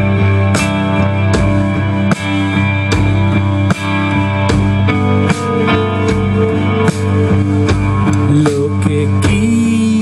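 Live rock band playing an instrumental passage: electric guitars, bass and drum kit, with a steady beat.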